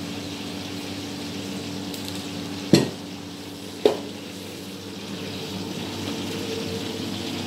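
Cauliflower frying in a pan of oil, a steady sizzle over a low hum, with two sharp knocks about a second apart partway through.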